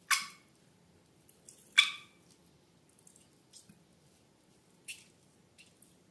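Slime and balloons being handled: a few short, sharp squishing sounds. Two louder ones come about a second and a half apart, then fainter ones later.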